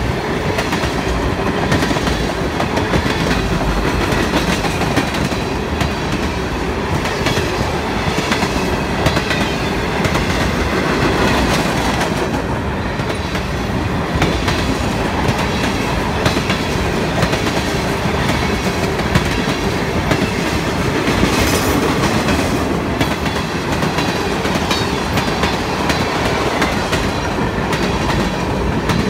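Freight train cars, tank cars then boxcars, rolling past close by: the steady, unbroken sound of steel wheels running on the rails.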